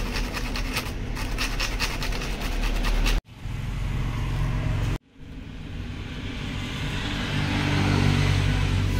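A vehicle engine runs with a steady low drone while traffic noise goes by. For the first three seconds there is fast, rhythmic scraping, about five strokes a second. The sound cuts out abruptly twice, and afterwards the traffic noise slowly builds.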